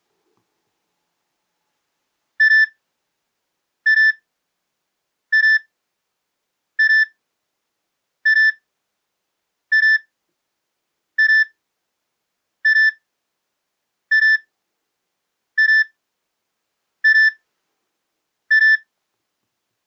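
Nokia E63 ringtone made of one short, high electronic beep repeated at an even pace, about every one and a half seconds, starting a couple of seconds in.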